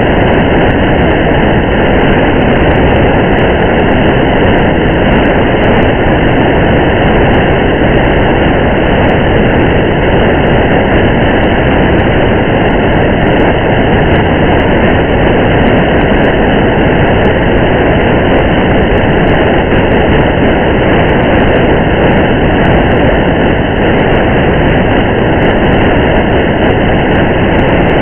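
Steady rain and road noise of a car driving through the rain, heard as an even, unbroken rumbling hiss with no change in level, and faint scattered ticks above it.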